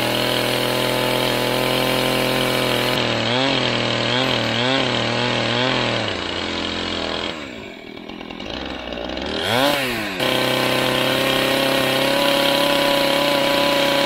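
Gas chainsaw running at full throttle while crosscutting a rough-sawn timber beam, its engine pitch dipping several times under load. About halfway through it drops back toward idle for a couple of seconds, then revs up sharply and runs flat out again.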